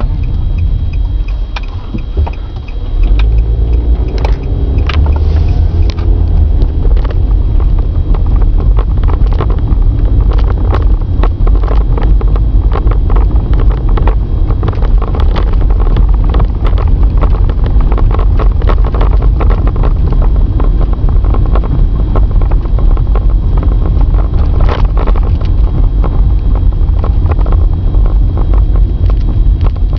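Car driving, heard through a camcorder mounted in the car: a loud, steady road and engine rumble with frequent small knocks and rattles. The rumble dips briefly about two seconds in, then returns.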